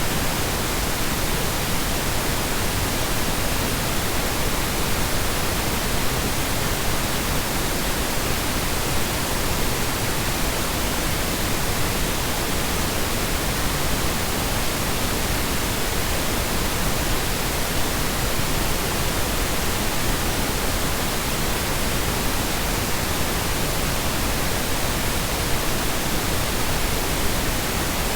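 Steady synthetic noise for sound masking, a constant even hiss and rumble with no changes in level or pitch.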